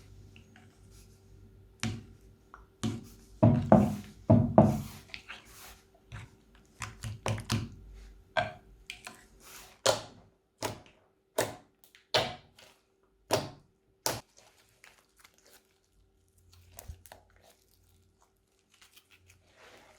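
Slime being squeezed and worked by hand, making a run of separate sticky pops and clicks, with a denser burst of louder squishing about three to five seconds in.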